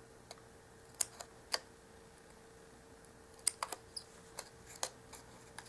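Small pointed craft scissors snipping through a printed paper kit piece: about ten short, sharp clicks at irregular intervals, some coming in quick clusters.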